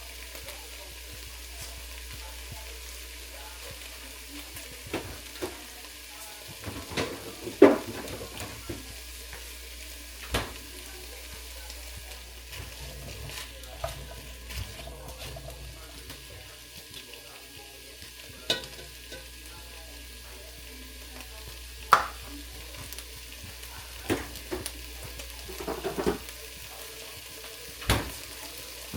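Food sizzling steadily in a hot pan while it is stirred, with a utensil knocking sharply against the pan about ten times at uneven intervals.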